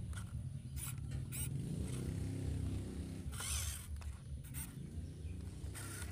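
WPL C24 RC pickup truck crawling through loose wet soil under a load of cassava stems: a steady low hum from its small electric motor and gears, broken by short gritty scrapes of the tyres churning the dirt, the longest about halfway through.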